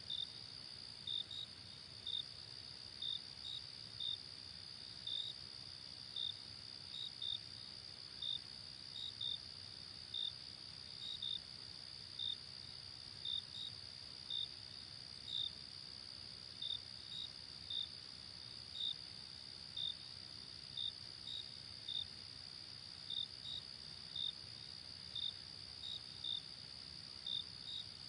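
Crickets chirping at night: a steady high trill with short, louder chirps over it, about one or two a second, some coming in pairs.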